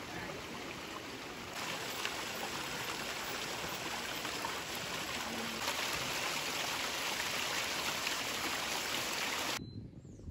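Water from a small garden cascade running and splashing steadily over stones into a pond. It gets louder about a second and a half in and cuts off suddenly near the end.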